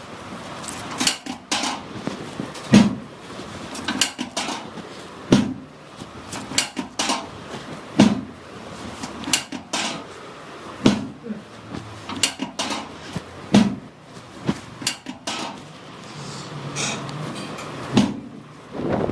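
A run of sharp knocks and thuds, about one every second or so, some in quick pairs.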